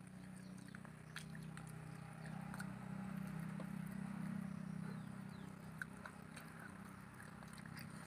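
Eating by hand: chewing and the small wet smacks and clicks of fingers mixing rice and curry on plates, over a steady low hum that swells and fades in the middle.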